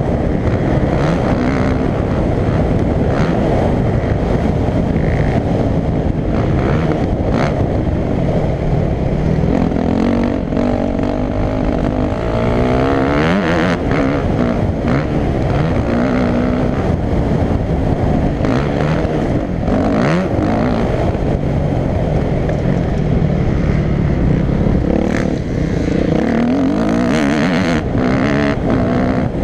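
Motocross dirt bike engine heard from the rider's helmet under way, its revs rising and falling over and over, with rushing wind noise on the microphone.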